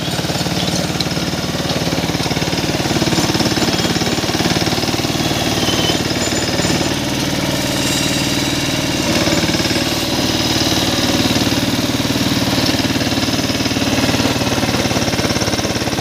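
ACE Veer 20 mini tractor's diesel engine running steadily under load while pulling a rotary tiller through the soil.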